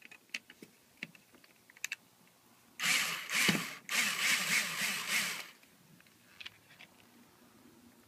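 A few light clicks, then an electric screwdriver running to drive screws, in two bursts with a brief pause between them. The second burst is longer, and the pitch wavers as the screw tightens.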